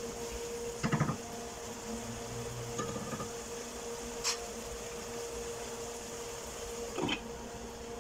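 A steady mechanical hum runs throughout. Over it come a few knocks from a wooden spoon stirring in a metal cooking pot, one about a second in and a few more around three to four seconds. Near seven seconds a glass lid is set down on the pot.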